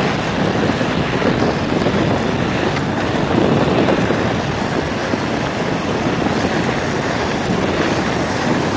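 Steady rushing of wind over the microphone, mixed with the rolling hum of bicycle and inline-skate wheels on asphalt, from a camera moving at speed alongside the group.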